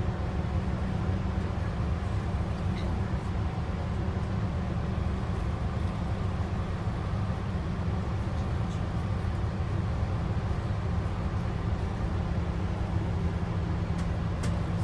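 Steady low rumble of a bus's engine and road noise, heard from inside the passenger cabin while driving. A few faint clicks come near the end.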